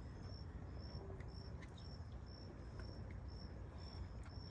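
A cricket chirping steadily: short high chirps repeating evenly, a little over two a second.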